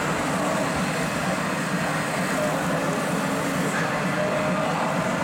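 Steady mechanical running noise with a murmur of indistinct voices behind it, unchanging throughout.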